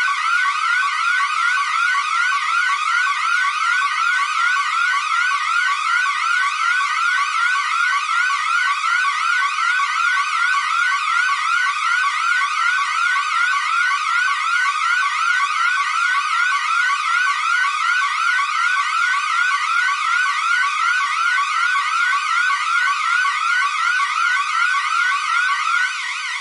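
Electronic security alarm siren of the bank-alarm type sounding continuously: a rapid, even run of short rising sweeps, loud and unchanging, that drops in level near the end.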